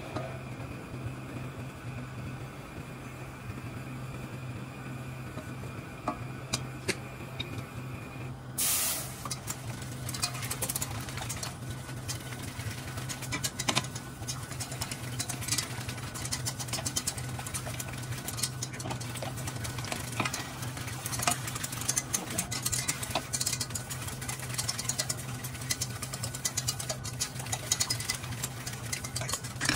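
Butter-and-flour roux being stirred in a stainless-steel saucepan. About nine seconds in, milk poured into the hot roux gives a brief loud hiss. After that, a wire whisk beats the milk sauce, clicking and scraping rapidly against the sides of the pan, over a steady low hum.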